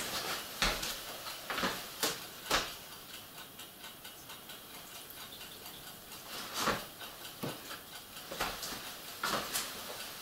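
Irregular clicks and light knocks of small items being shifted about while someone rummages for model paint, with a quieter stretch in the middle.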